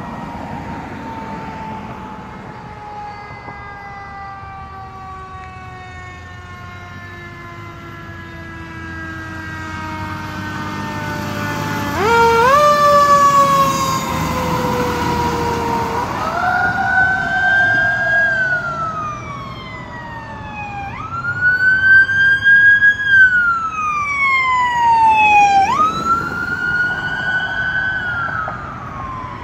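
A fire truck's siren, likely a mechanical Federal Q, winds slowly down, then is spun up four times in quick rises that each fall away slowly. The truck's engine rumbles loudest as it passes close about twelve seconds in.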